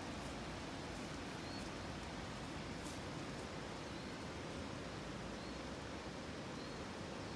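Steady outdoor background hiss, with a faint short high chirp repeating about every second or so.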